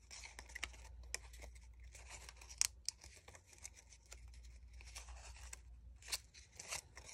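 Cardstock petals rustling and crinkling faintly as they are pinched and rolled around a wooden dowel rod, with scattered small crackles of the paper.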